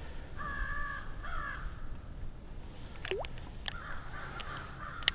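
A bird calling twice in quick succession about half a second in, then a single sharply falling call about three seconds in, over faint steady outdoor background; a sharp click at the very end.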